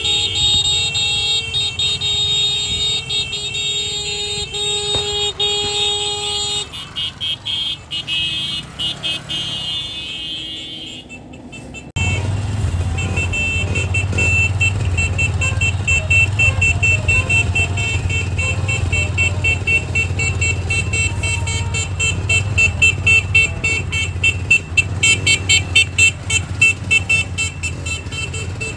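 Vehicles and motorcycles in a caravan: engines running and horns sounding steady tones. About 12 seconds in, the sound changes abruptly to a louder, lower engine rumble with rapid repeated beeps later on.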